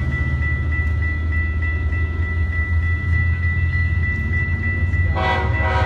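Train rolling past with a steady low rumble and a steady high-pitched tone over it. Near the end a horn gives two short blasts.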